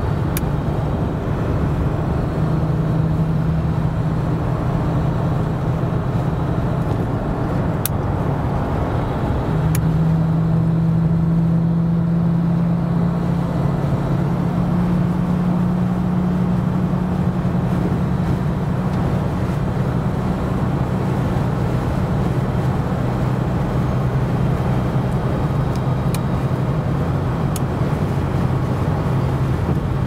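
1979 Ford Thunderbird's V8 and tyre and road noise at highway cruising speed, heard from inside the cabin: a steady low drone. Its pitch steps up about ten seconds in and settles lower over the second half.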